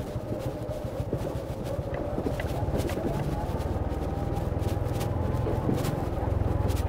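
Small motorcycle engine running under way, a steady drone made of rapid, even firing pulses, growing a little louder about halfway through.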